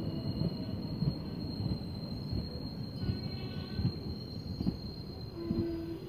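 Passenger coaches of a departing express train rolling past at low speed: a steady rumble with irregular wheel knocks over the rail joints, and a thin, steady high whine. A held note starts near the end.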